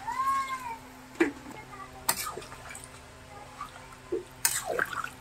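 Water poured into a pan of chicken curry masala that has been fried dry, a short splash about four and a half seconds in, with two sharp knocks earlier.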